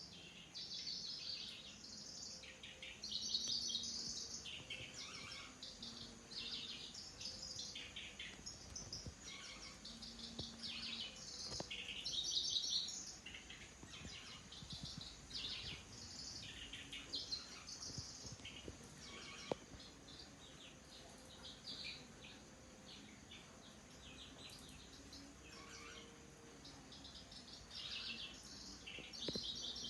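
Lanceolated warbler (kecici belalang) singing: short, fast, rattling high-pitched phrases, one after another with brief gaps.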